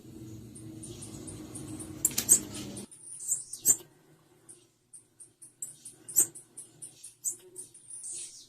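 Female blue-black grassquit (tiziu) calling: a run of short, very high chips, repeated several times a second. A low hum sits under the chips and cuts off about three seconds in.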